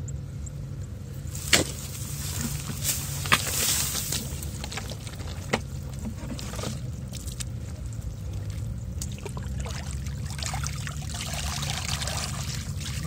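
Muddy water sloshing and trickling as a woven basket is lifted out of a shallow, muddy rice-field ditch and streams water back into it, with a few sharp knocks in the first half. A steady low rumble runs underneath.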